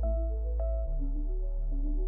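Background music: soft electronic ambient track with gentle plucked notes over a steady deep bass tone.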